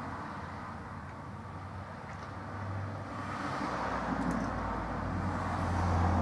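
A low steady hum under a background of even noise, growing louder through the second half.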